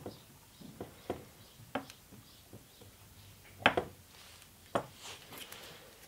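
Small clicks and taps of wires, a soldering iron and a solder spool being handled on a workbench, with two louder knocks, one about three and a half seconds in and another near five seconds.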